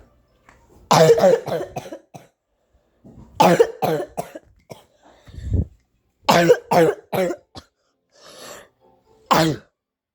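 Several bouts of coughing, each a few quick coughs in a row, with short gaps between bouts and one single cough near the end.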